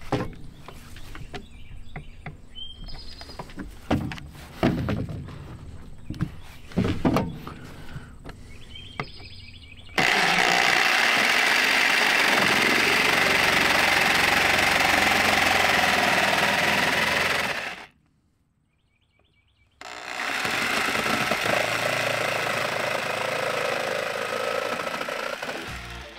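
Corded jigsaw cutting through a laminate floor plank. Scattered knocks come first; about ten seconds in the saw starts abruptly and runs steadily for about eight seconds. It breaks off for about two seconds, then runs again a little quieter for the last six seconds.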